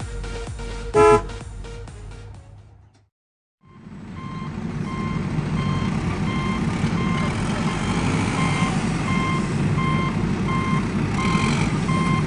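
Electronic music with a sharp hit about a second in fades out, then after a short gap a heavy vehicle's engine runs while a reversing beeper sounds steadily about twice a second.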